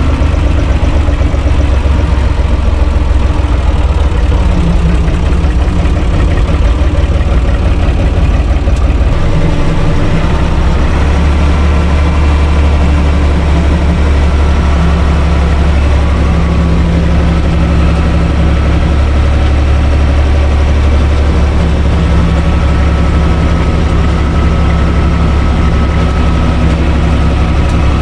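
Universal U445 DT tractor's four-cylinder diesel engine running steadily while driving, heard from inside the cab; its note shifts about nine seconds in.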